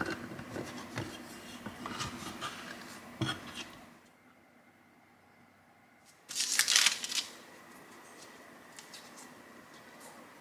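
Metal bench scraper cutting through soft bread dough and tapping on a silicone baking mat in a run of sharp clicks. After a short quiet pause comes a loud rustle of parchment paper lasting about a second, then faint soft handling of dough.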